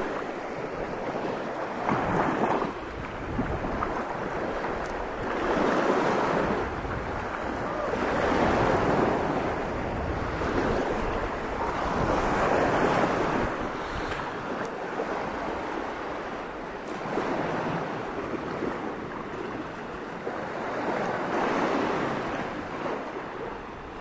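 Small sea waves washing onto a sandy beach, the surf swelling and falling back every few seconds, with wind rumbling on the microphone.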